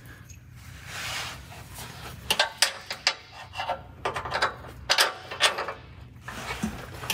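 Bolt being worked in to mount a steel winch bumper to the frame: soft rubbing at first, then from about two seconds in a run of irregular metallic clicks and scrapes.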